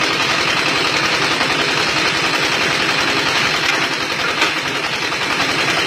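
Brick-making machine running with a fast, steady mechanical clatter.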